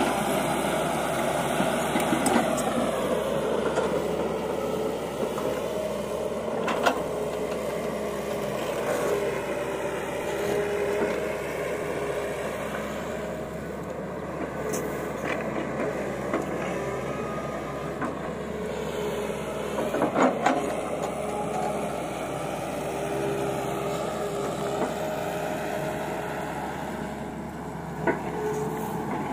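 Tata Hitachi EX200LC hydraulic crawler excavator working: its diesel engine runs steadily, the pitch sagging and rising as the hydraulics take load while the bucket digs and dumps soil, with a few short knocks.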